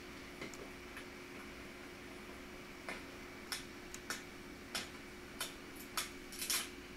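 Small sharp clicks and taps of a screwdriver working at a laptop's plastic LCD bezel and screws: a few faint ones at first, then sharper clicks about every half second from about three seconds in. A steady faint hum runs underneath.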